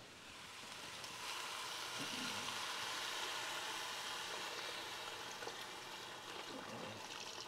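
Chicken stock poured from a carton into a Dutch oven, a steady stream of liquid splashing into the pot. It builds about a second in and eases off near the end.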